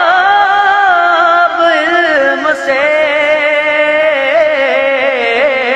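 Naat being sung: a voice holding long, wavering, ornamented notes of the verse, with a second steady line of voice sounding underneath.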